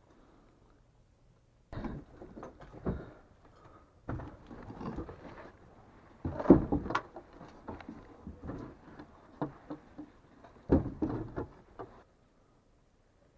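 Someone moving through and handling debris in a collapsed wooden house: irregular knocks, scrapes and clatters of wood and junk, loudest a little past halfway and again near the end, then stopping abruptly.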